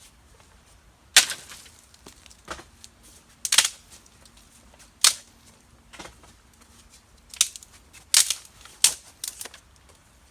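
Dry sticks being snapped by hand for firewood: about eight sharp cracks at irregular intervals, a few in quick pairs.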